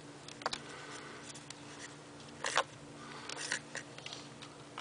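Small clicks and scrapes of wire spade connectors being pulled off the pressure switch terminals in a pump's control box, a few scattered sounds with the loudest about halfway through, over a steady low hum.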